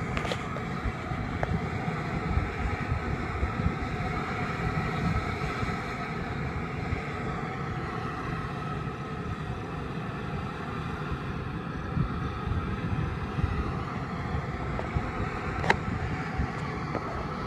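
A geothermal steam vent hissing and rumbling steadily, with wind buffeting the microphone. A sharp click near the end.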